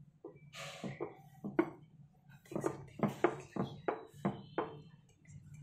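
A wooden rolling pin is rolled back and forth over a slice of bread on a wooden board, giving a series of short wooden knocks and rolls. They are sparse at first and come quicker, two or three a second, in the second half.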